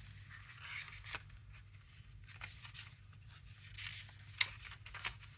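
Paper and card stock being handled: rustling and sliding with small scattered ticks, and one sharper click about four and a half seconds in.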